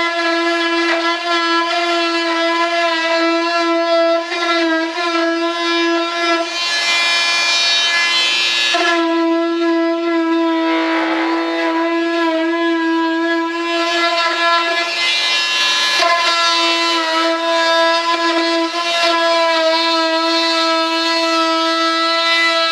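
Handheld rotary tool running at a steady high speed with a constant whine, worked against the edge of a composite (fibreglass) wing skin. A rough grinding hiss joins the whine about a third of the way in and again a little later, where the tool bites into the material and briefly drops in pitch.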